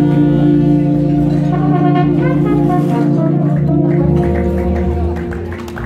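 Small live jazz-gospel band with brass horn, electric guitar and upright bass playing long held chords; the sustained chord gives way to a few bass notes and the music dies down near the end, as at the close of the tune.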